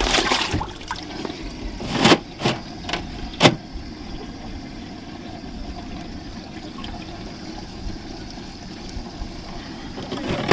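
Water trickling over a steady low hum, with several sharp knocks in the first four seconds.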